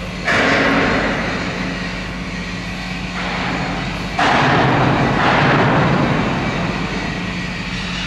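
Shipyard construction-hall ambience: a steady low machine hum, with two loud rushing hisses that start abruptly, about a quarter-second in and about four seconds in, each lasting two to three seconds.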